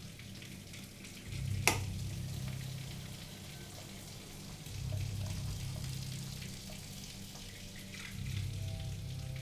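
Shower water running, a steady spraying hiss, under a low hum that swells and fades three times. One sharp click comes a little under two seconds in.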